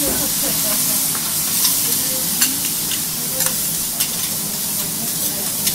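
Wagyu steak and bean sprouts with greens sizzling on a hot steel teppanyaki griddle: a steady hiss with scattered sharp ticks and pops.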